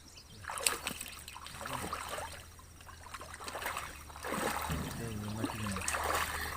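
Shallow pond water splashing and trickling as it is worked by hand for small fish, louder after about four seconds, with a faint voice near the end.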